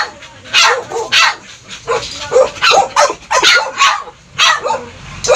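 A small dog barking over and over in high-pitched yaps, about two a second.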